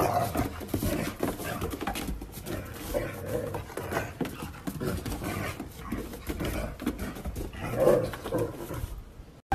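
A dog running and sliding about on a snow-dusted wooden deck: frequent clicks and scuffs of its paws on the boards, with the dog's panting and a few short pitched sounds.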